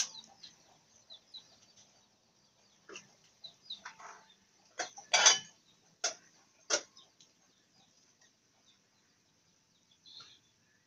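A handful of short, separate sharp sounds over a quiet background, bunched in the middle of the stretch, the loudest about five seconds in.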